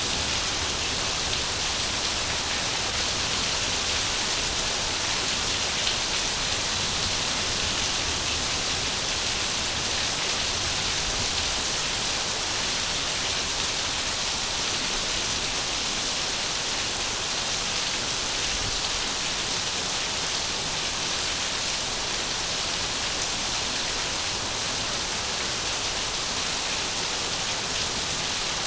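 Steady, even hiss of falling water, heavy and continuous, with no separate drops or breaks standing out.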